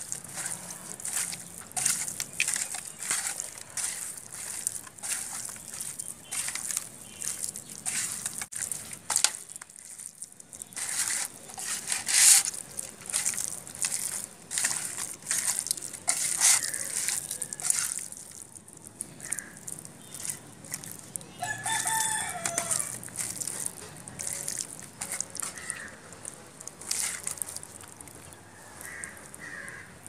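Hands squishing and rubbing masala-coated fish pieces in a steel bowl: a long run of short, wet squelches. About two-thirds of the way through, a rooster crows once.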